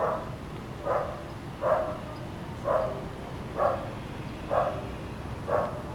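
A dog barking over and over at an even pace, about one bark a second, seven barks in all.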